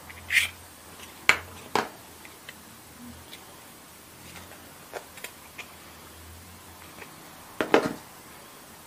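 Small hard plastic toy furniture pieces clicking and tapping as they are handled and set down on a hard surface: a few sharp clicks in the first two seconds, light ticks about five seconds in, and a quick cluster of taps near the end.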